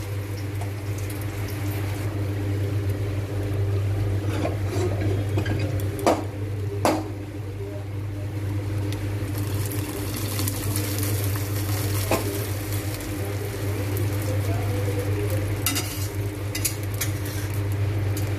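Hot tempering oil with mustard seeds, dried red chillies and curry leaves sizzling in a steel pan and being poured over curd, with a spoon scraping and a few sharp metal knocks, over a steady low hum.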